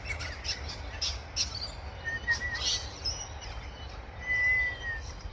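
Wild birds calling: short, sharp chirps in the first three seconds, then clear whistled notes, the longest a single slightly falling whistle about four seconds in.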